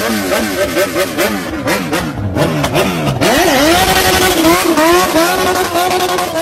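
A sport bike's engine is revved in quick repeated throttle blips, then rises and is held at high revs with small wobbles as the rear tyre spins in a burnout.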